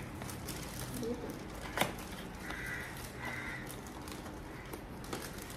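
Two short, distant crow caws over quiet room noise, with a single sharp click a little before them.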